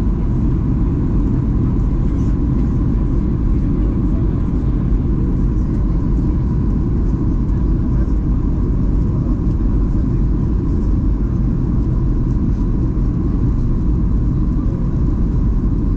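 Steady low rumble of engine and airflow noise inside the cabin of a Boeing 737-800 in flight, with a faint steady whine.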